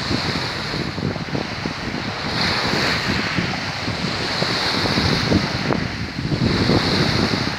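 Wind buffeting the microphone over a choppy sea, with a hissing wash of wind-driven waves that swells and fades every couple of seconds.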